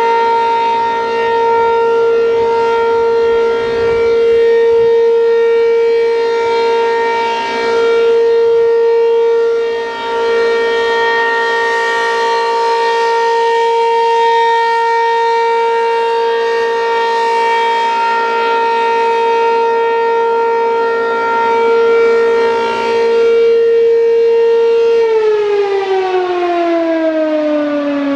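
ACA P-15 electromechanical outdoor warning siren sounding a loud, steady alert tone that swells and dips in loudness. About 25 seconds in, its pitch starts falling as the siren winds down at the end of the one-minute alert.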